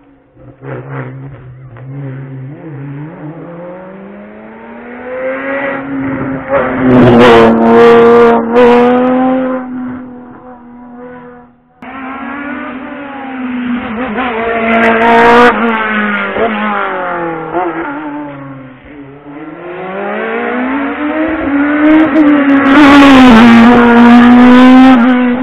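Hill-climb race cars driven flat out, the engine note climbing and dropping again and again as the drivers run up through the gears, loudest as each car comes closest. About twelve seconds in the sound cuts abruptly and a second car is heard doing the same.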